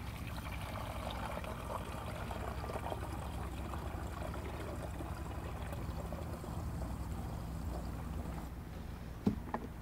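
Dyed water pouring steadily from a plastic jug through a plastic funnel into the tank of a low-pressure infusion system, filling it. A few light knocks come near the end.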